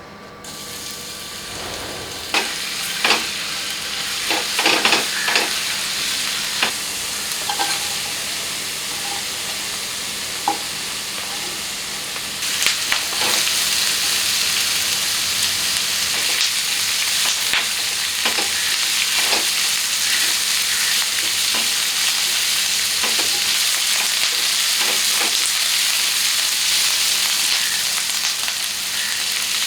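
Food sizzling in hot oil in a pan, with scattered clinks and scrapes of a utensil stirring it. The sizzle starts just after the beginning and grows louder about twelve seconds in.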